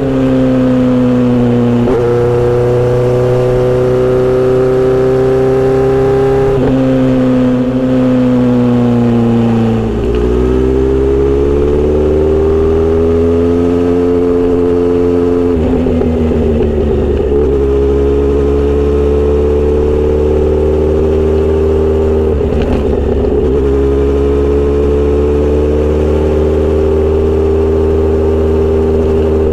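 Kawasaki Z900RS inline-four through a Misty Kintaro short steel exhaust, riding along with the engine note rising and falling several times as it is revved up and shifted through the gears.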